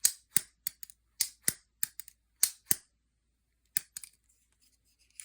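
CJRB Acacia pocket knife flicked open and shut over and over, its crossbar lock snapping with sharp metallic clicks that ring like a bell. The clicks come in quick pairs, about six pairs, then thin to faint ticks after about four seconds.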